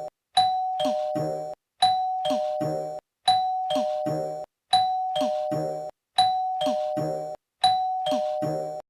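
Two-note 'ding-dong' doorbell chime, a higher note then a lower one, rung over and over about once every second and a half. The last chime cuts off suddenly near the end.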